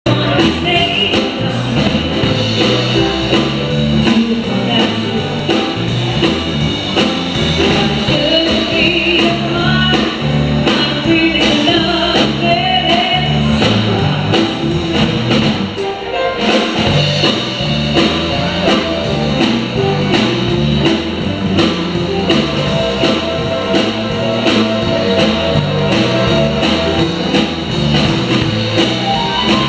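Live band playing upbeat music for swing dancing: a woman singing into a microphone over guitar and drums, amplified through a PA speaker, with a steady beat.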